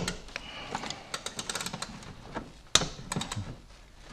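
Ratchet wrench working the timing belt tensioner nut on a Renault 1.5 dCi engine: a run of quick pawl clicks mixed with sharp metal knocks of the tool. The loudest knocks come at the very start and just under three seconds in.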